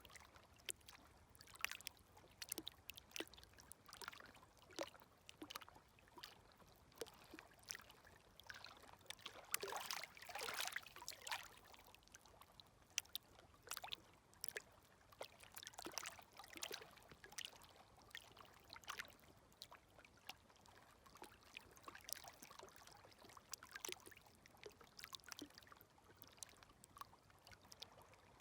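Faint, gentle small waves lapping at the shoreline: a string of light splashes and trickles, with a slightly larger wash about ten seconds in.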